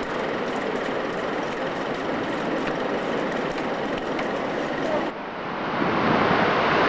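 Tidewater glacier calving: a continuous rumbling roar of ice collapsing into the sea. After a break about five seconds in, the roar of a second fall swells louder.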